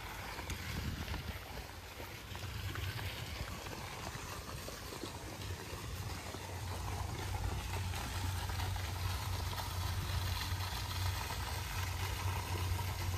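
Steady splashing of a garden pond fountain, with a low rumble of wind on the phone's microphone; the water grows a little louder about halfway through.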